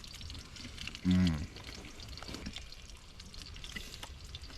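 Faint crackling and sizzling from cooking over a campfire, with many small clicks. About a second in, a man makes a short, low "mm".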